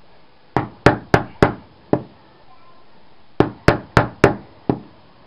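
Two quick runs of five hammer blows each on lead-sheathed cable conduit, sharp strikes about a quarter second apart with a short ring after each, splitting the soft lead sheath lengthwise.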